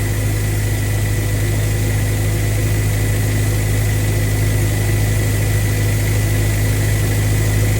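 Towed air compressor's engine running steadily under load while it blows out an irrigation reel, a constant low hum with a thin steady high whine over it.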